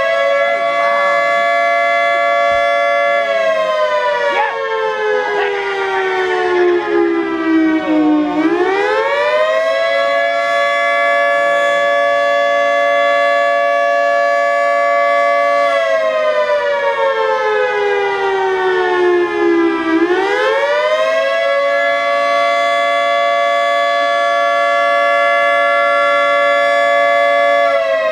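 Federal Signal 2T22 dual-tone outdoor warning siren sounding its attack (wail) signal. A two-note chord holds high, slides down over about five seconds, then climbs quickly back up and holds. The cycle repeats twice, and a third fall begins near the end.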